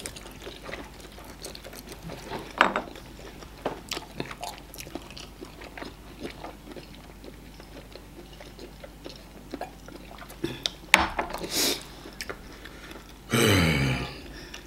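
Close-up eating sounds: chewing and wet mouth smacks as amala with ogbono soup and meat is eaten by hand, in scattered short clicks. Near the end comes a louder vocal sound of about a second, falling in pitch.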